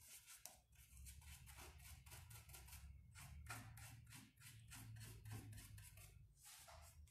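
Faint scratching of a worn, stiff paintbrush scrubbing paint into rough, pitted wood: a quick run of short strokes, a few a second.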